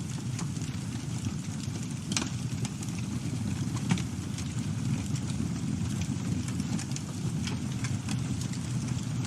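Campfire burning: a steady low rumble with scattered crackles and pops, the sharpest about two seconds in and again just before four seconds.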